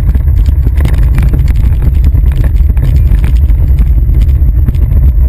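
Kids' ride-on toy car rolling over pavement, its hard plastic wheels giving a loud, steady rumble with dense rattling, picked up close by a camera mounted on the car.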